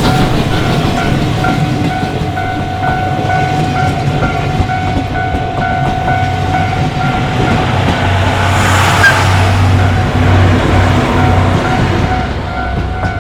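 Train rumbling and clattering over the rails through a Japanese level crossing, louder about two thirds of the way in, while the crossing's warning bell rings in an even, repeating beat.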